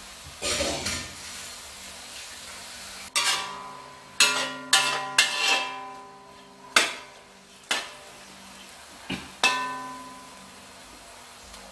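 Metal spatula scraping and knocking against a large metal wok while stir-frying minced meat, with faint sizzling. After a scrape near the start, there are about nine sharp knocks from about three seconds in, each ringing on briefly.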